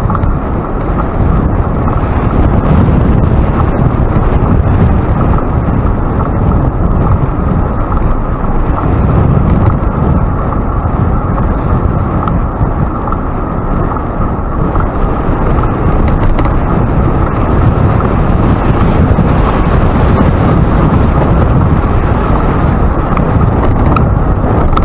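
Steady, deep wind rush on the microphone of a camera riding along on a moving bicycle.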